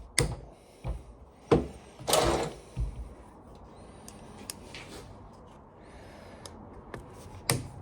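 Knocks and clatters of tools being handled while taking apart an impact wrench, with a short scrape about two seconds in, then a few light clicks near the end.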